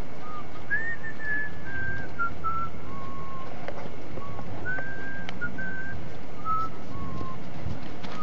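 A person whistling a tune: two phrases of short notes stepping down in pitch, with a pause of about a second between them, over a steady hiss.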